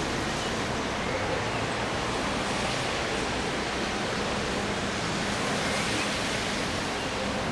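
Steady rain falling on tree leaves, an even, unbroken hiss.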